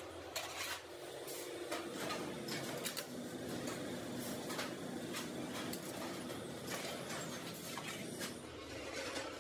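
Forming press working a steel motorcycle mudguard in its die: a steady machine hum sets in about two seconds in and stops near the end, with frequent sharp metal clicks and knocks throughout.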